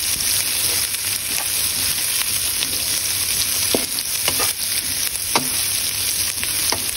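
Chopped cabbage, carrots and capsicum sizzling steadily in hot oil in a pan while being stir-fried with a wooden spatula. The spatula knocks and scrapes against the pan a few times.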